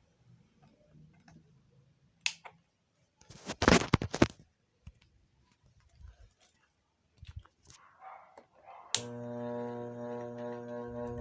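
A few clicks and a brief burst of knocking from the fan being handled. About nine seconds in, a switch clicks and the 50 cm table fan's electric motor starts with a steady, even hum.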